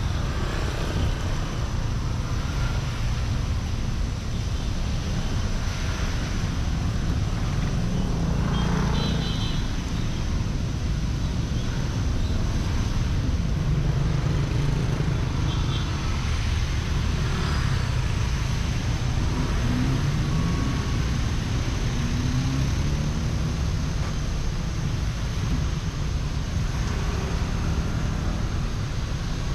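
Steady wind rush and wet road noise picked up by a GoPro mounted on the hood of a moving car, driving through rain with other traffic around.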